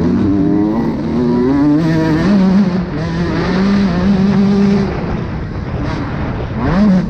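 Motocross bike engine under hard throttle, its pitch stepping up and falling back with throttle and gear changes, with a quick rev up and down near the end.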